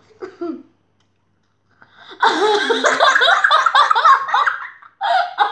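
Two children laughing loudly together, bursting out about two seconds in after a moment of silence.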